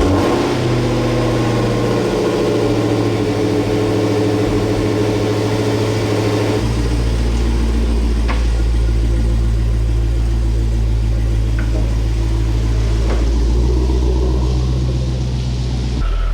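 Dodge Challenger engine running at a steady idle just after starting up. Its low drone shifts deeper about six and a half seconds in and changes again near the end.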